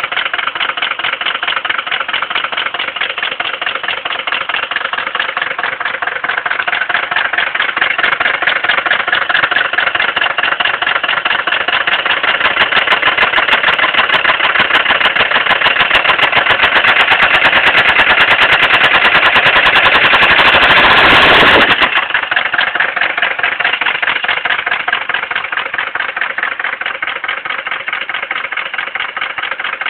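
1979 Mercedes-Benz 300D's five-cylinder diesel engine running with a rapid, even rod knock, the sign of a failing connecting-rod bearing. The knocking grows louder from about six seconds in, then falls back suddenly about three-quarters of the way through.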